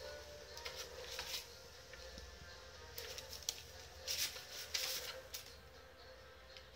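Scattered quick scuffs and rustles of a cat's paws scrabbling on the floor and a newspaper as it pounces on and bats at a dangling string, with a cluster of them a few seconds in.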